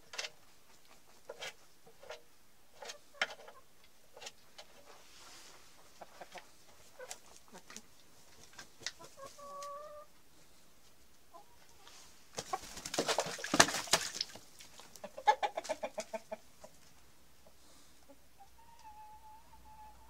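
Chickens in a coop clucking, over scattered soft taps and clicks. About halfway through there is a short call, then a loud, noisy flurry lasting about two seconds, followed by a run of quick clucks.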